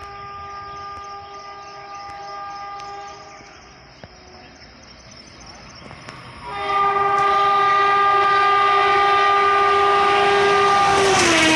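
Gatimaan Express's WAP-5 electric locomotive sounding its multi-tone air horn on a high-speed approach at about 160 km/h: one long blast fading out about three seconds in, then after a pause a second, much louder long blast. Near the end the horn's pitch drops as the locomotive passes, and the rush of the train going by rises.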